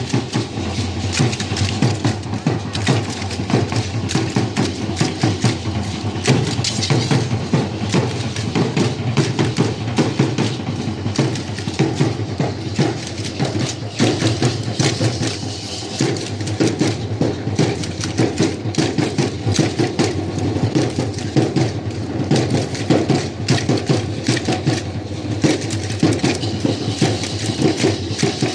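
Percussion-driven music for a guayulera danza: a steady drum beat under dense, rapid rattling and clicking throughout.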